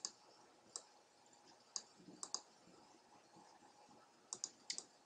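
Computer mouse clicking: about ten short, quiet clicks, several in quick pairs, with near silence between them.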